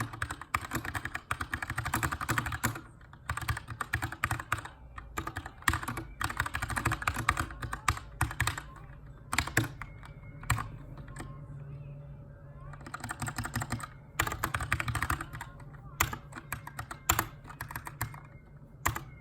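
Keychron K2 aluminium-framed mechanical keyboard with brown switches being typed on during text editing. Fast runs of keystrokes alternate with short pauses and single key presses.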